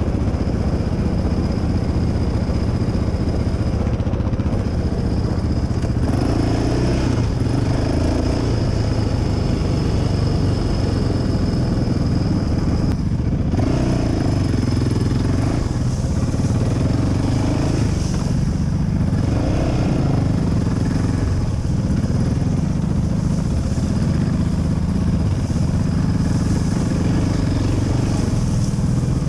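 Quad bike (ATV) engine running as it is ridden off-road, the revs rising and falling over and over.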